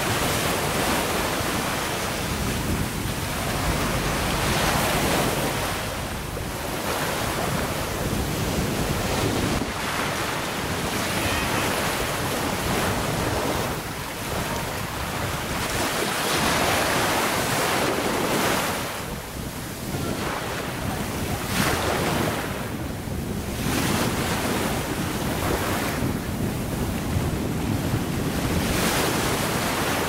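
Small waves washing onto a sandy beach, the surf swelling and falling back every few seconds, with wind rumbling on the microphone.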